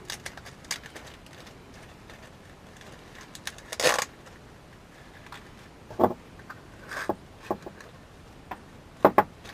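Small metal track screws being dropped into a little pot, making scattered clicks and clinks. A few clinks are louder than the rest, two of them close together near the end.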